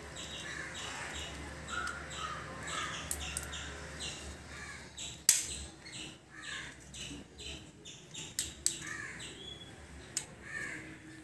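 Birds calling in the background, short calls repeated several times a second, thinning out in the middle and returning near the end. One sharp click sounds about five seconds in.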